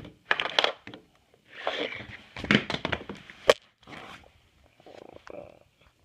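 An orange plastic toy dinosaur being handled close to the microphone: irregular scraping, crunching and clicking, with one sharp click about three and a half seconds in.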